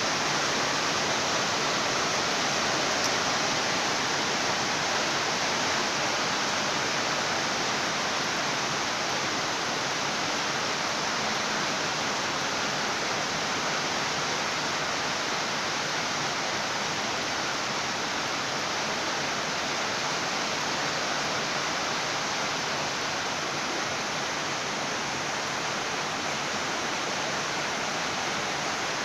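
Steady, even hiss of heavy rain falling, with no thunder and no single drops or rumbles standing out.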